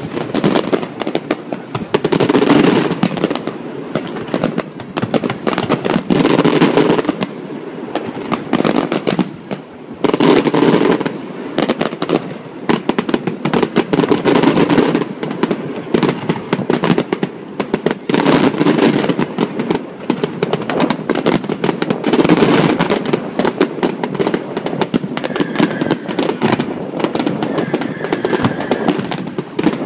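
Aerial fireworks going off in a continuous barrage: a steady stream of bangs and crackles, swelling into louder clusters of bursts about every four seconds, with a faint high whistling tone near the end.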